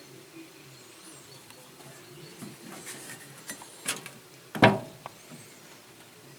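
A few light metallic clicks, then a single loud clank of metal on metal that rings briefly, like a steel part or tool being set down on a hard surface.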